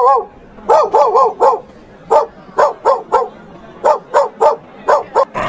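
A dog barking over and over, short pitched barks in quick runs of three to five, about a dozen in all, after the end of a longer drawn-out call at the start.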